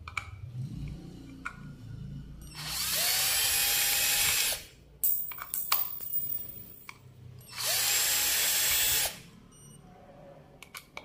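Makita 12 V cordless drill-driver backing screws out of a plastic electrical box. It runs in two bursts, about two seconds and then a second and a half, each starting with a quick rising motor whine. Sharp clicks and handling knocks come between them.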